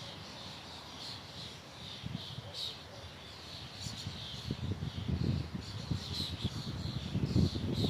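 Small birds chirping and calling repeatedly in short high notes, over wind gusting on the microphone that grows stronger about halfway through.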